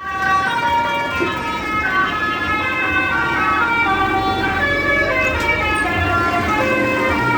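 Bus 'telolet' horn: a set of multi-tone air horns on a bus playing a melody of held notes, changing note every half second or so, over a low rumble.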